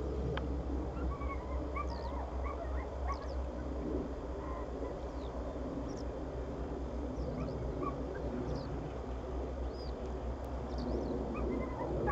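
Birds chirping: many short, high calls scattered throughout, over a steady low rumble.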